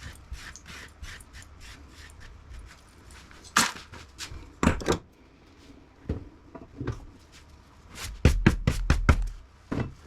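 Knocks and clatter of scrap air-conditioner parts being handled and sorted into buckets: small clicks at first, two sharp knocks around the middle, then a quick run of heavier clunks near the end.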